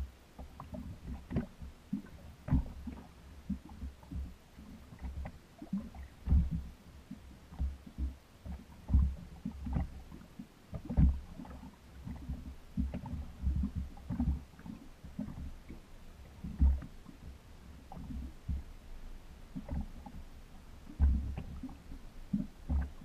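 Small waves slapping against a small aluminium boat's hull, heard as an uneven run of low thuds and hollow knocks, several a second, with a few louder slaps every few seconds.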